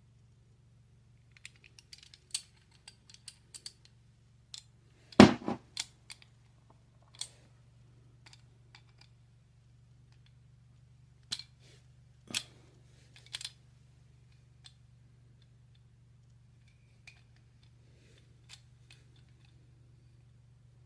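Irregular metallic clicks and clinks of hand tools turning a corroded knock-sensor stud loose, with one sharp knock about five seconds in and a few more clinks near the middle, over a faint steady low hum.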